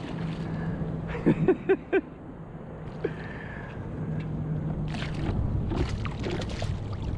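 Water splashing and sloshing beside a kayak as a hooked largemouth bass thrashes at the surface, with the splashes coming thick in the second half. A few short vocal sounds come about a second in.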